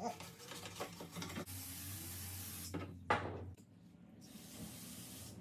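A crusty engine part being scrubbed clean by hand: irregular scraping strokes, then a steady hiss for about a second, a single sharp scrape about three seconds in, and a quieter hiss after it.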